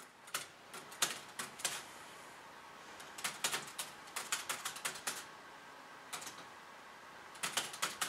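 Keys of a 1915 Underwood No. 5 manual typewriter being struck, the typebars clacking in irregular runs. There are a few strokes in the first two seconds, a quick burst of strokes in the middle, and another tight cluster near the end.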